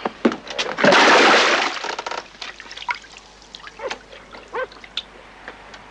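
A sudden loud crash-like burst about a second in, followed by a dog giving short barks and yelps.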